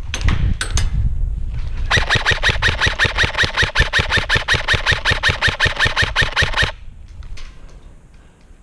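Colt M4A1 airsoft rifle firing on full auto: a short burst near the start, then one long rapid burst of about five seconds from about two seconds in, which cuts off suddenly.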